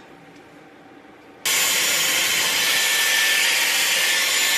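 Dyson Airwrap hair styler blowing air: a steady rush of air with a faint high whine, cutting in abruptly about a second and a half in after a quiet gap, then stopping sharply at the end.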